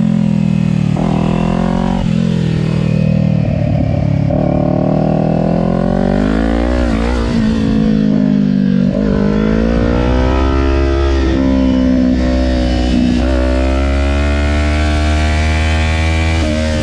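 A 2020 Kawasaki Ninja 400's 399 cc parallel-twin engine running hard on track, its pitch climbing steadily and then dropping sharply several times as the bike is accelerated through the gears and slowed for corners. A steady low rumble of wind on the moving bike runs underneath.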